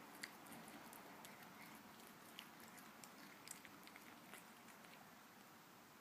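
A cat chewing a piece of fresh lettuce: faint, irregular crunches and clicks of its teeth.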